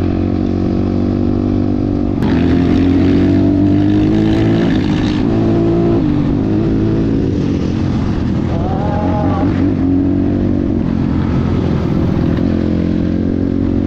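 Motorcycle engine running on the road, rising steadily in pitch as it accelerates from about two seconds in, then dropping back around six seconds.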